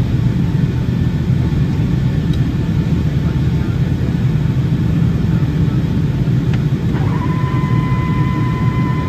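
Boeing 757-200 cabin noise heard from a window seat over the wing during the descent: a loud, steady low rumble of engines and airflow. About seven seconds in, a steady high whine starts and holds.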